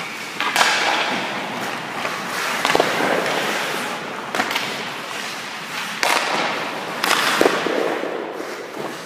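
Hockey skates scraping and carving on the ice, with a series of sharp cracks from sticks striking pucks and pucks hitting the goalie's pads, net and boards.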